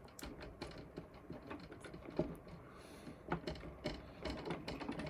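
Irregular clicks, taps and light rattles of small hand tools and metal parts being handled at close range.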